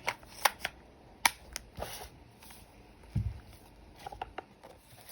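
Objects being handled at close range: a series of sharp clicks and knocks, a soft low thump a little after three seconds in, and some brief rustling.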